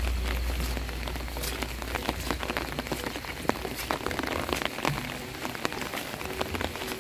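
Rain falling, with many sharp drop taps close to the microphone. A low wind rumble on the microphone fades away over the first couple of seconds.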